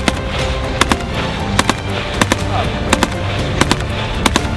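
AK-47 rifle firing a rapid string of single shots at an uneven pace, roughly two to three a second, with background music underneath.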